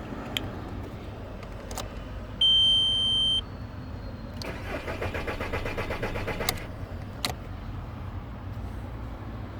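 A VW Bora Mk4 with a crank-but-no-start fault, which the title puts down to the shutoff valve relay (relay 109). A high electronic beep sounds for about a second. Then the starter cranks the engine in a quick even rhythm for about two seconds, which ends with a click and then another click a moment later.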